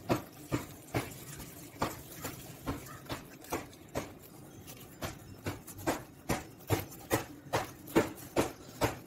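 Kitchen knife slicing raw beef into thin strips on a wooden cutting board, the blade knocking on the board with each cut, about two short knocks a second in a slightly uneven rhythm.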